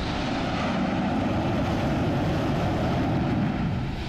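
MiG-29K fighter's twin turbofan engines running loud on the carrier deck, a steady rush of jet noise that eases slightly near the end.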